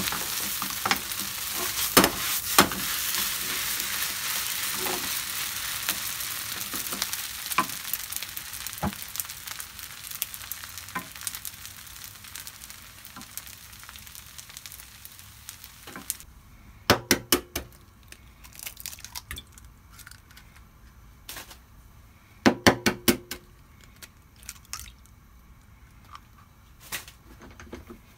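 Ketchup fried rice sizzling in a frying pan as a wooden spatula stirs it and knocks against the pan; the sizzle fades and cuts off about halfway through. Then two quick clusters of sharp taps, a few seconds apart.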